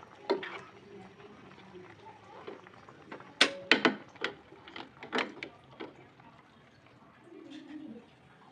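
A series of sharp knocks and clicks from hard household objects being handled. A loud quick cluster of three comes about three and a half seconds in, and a few more follow more spaced out.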